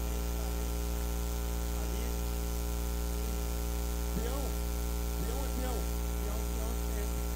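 Steady electrical mains hum: a constant low buzz with a stack of overtones, carried on the sound system. Faint voices come through in the background around the middle.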